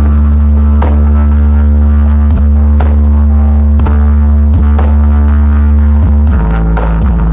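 Loud music played through a large outdoor sound-check rig. Heavy sustained bass notes carry it, with a drum hit about once a second, and the bass note steps down near the end.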